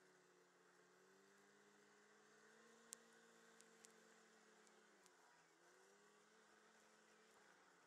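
Very faint, muffled snowmobile engine hum, its pitch dipping and then rising again about five seconds in. A few small clicks sound around three seconds in.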